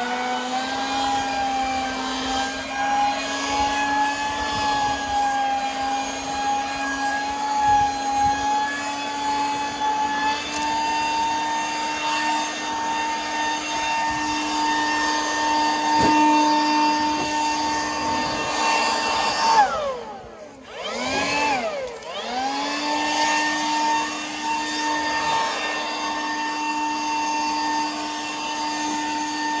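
Leaf blower running at full throttle, blowing debris out of the gutter: a steady, high whine that steps up slightly in pitch about ten seconds in. About twenty seconds in the throttle is let off and the pitch drops sharply, then it revs back up to full and runs steady again.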